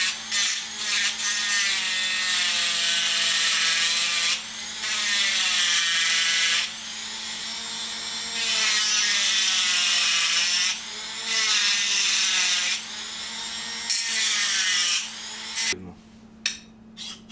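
Small handheld rotary grinder (bormashinka) grinding a raised casting lip off a cast metal cover plate, in several bursts of a few seconds, its whine sagging and recovering in pitch as it bites. It stops about fifteen seconds in, followed by a few light clicks.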